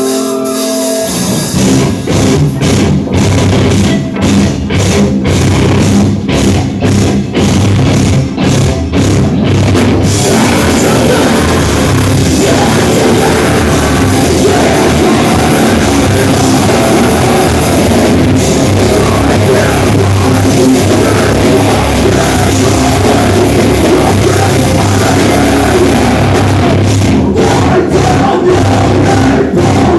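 Live heavy metal band with drum kit and guitars starting a song: the full band comes in about a second in, plays choppy stop-start hits for several seconds, then settles into dense, continuous heavy playing.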